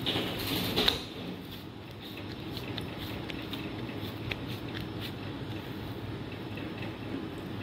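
Hands folding and pressing soft bread dough on a cling-wrap-covered worktop: a rustle of the plastic film in the first second, ending in a sharp tap, then faint soft taps over steady low background noise.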